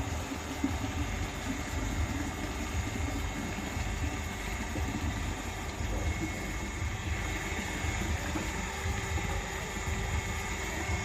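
Water pump running steadily, with a constant low rumble and the noise of water flowing.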